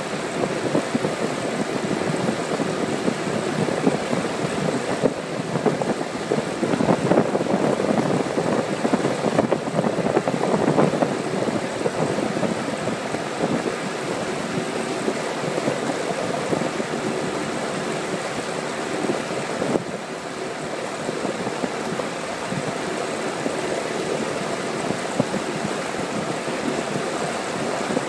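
Small boat's outboard motor running steadily, under a rushing noise of wind and water; a little louder for a few seconds early in the run.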